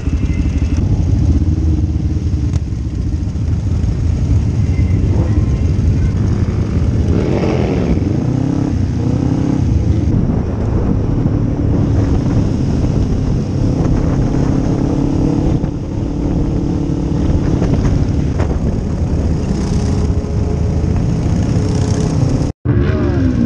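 Motorcycle on the move, heard from the rider's seat: the engine runs under a heavy rush of road and wind noise. Engine pitch rises and falls a few times as bikes accelerate, and the sound drops out for an instant near the end.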